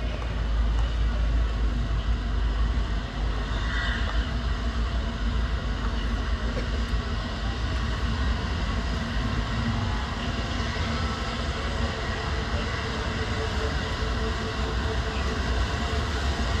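The Flying Scotsman, a 1923 LNER A3 steam locomotive, backing slowly into the platform with its carriages: a steady low rumble of the train moving at walking pace, with no clear exhaust beat.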